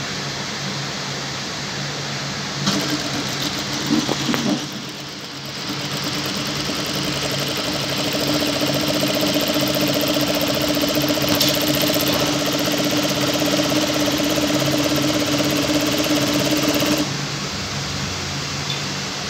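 Industrial lockstitch sewing machine fitted with a gathering foot, stitching fabric. It starts with a few short bursts about three seconds in, then runs steadily for about eleven seconds and stops abruptly. A steady fan hum sits underneath.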